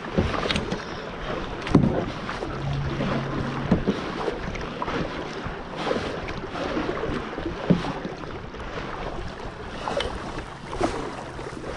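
Kayak paddle strokes in pond water, a short splash every second or two, over wind noise on the microphone.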